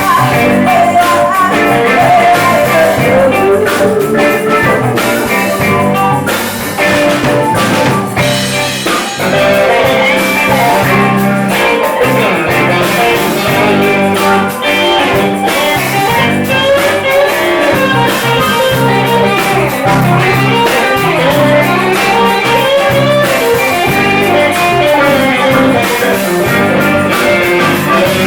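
Live band playing a slow soul-blues song, with guitar and drum kit.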